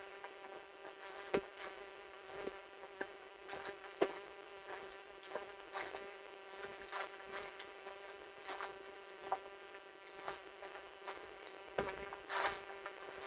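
Footsteps on a trail of dry fallen leaves and stones, crunching irregularly, over a steady buzzing hum that holds one pitch throughout.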